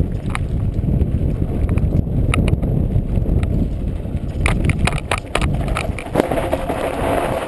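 Mountain bike riding fast down a rough dirt singletrack: a steady low rumble of tyres and wind on the camera microphone, with sharp rattles and clicks from the bike jolting over rocks that come thickest in the last few seconds.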